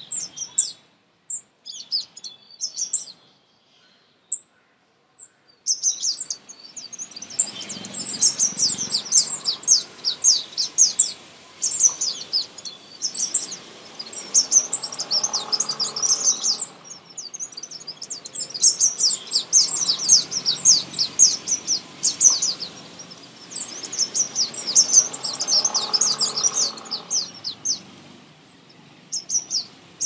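Many small birds chirping in dense bouts of rapid, high chirps, coming back every few seconds after a nearly quiet stretch at the start.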